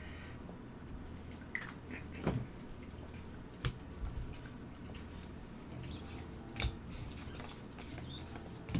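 Trading cards handled with gloved hands: scattered light taps and clicks as a stack of cards is picked up off the table and squared, over a steady low hum.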